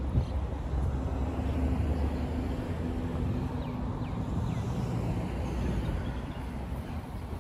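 Steady city road traffic: cars driving past, a continuous engine and tyre rumble.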